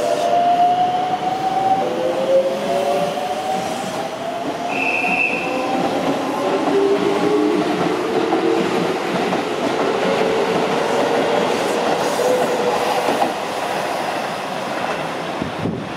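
Keisei 3700 series electric train pulling away, its inverter-driven traction motors whining in several tones that climb in pitch as it gathers speed, over wheel and rail noise. A brief high tone sounds about five seconds in.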